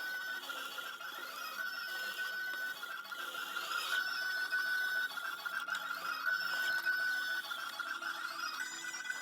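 Toy mini claw machine running, with a steady high-pitched whine that breaks off and starts again every second or two.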